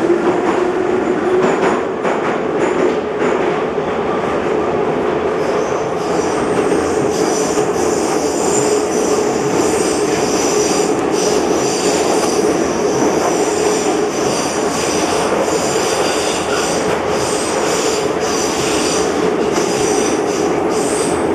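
Em-501/Ema-502 metro train running through a tunnel, heard from inside the passenger car. A steady hum rises in pitch over the first few seconds as the train picks up speed, then holds level; from about six seconds in, high wheel squeal and rapid rail clicks join it.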